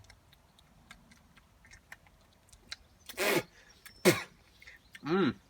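A man makes three short non-word vocal sounds, grunts or hums whose pitch falls, about three, four and five seconds in. Faint small clicks come between them.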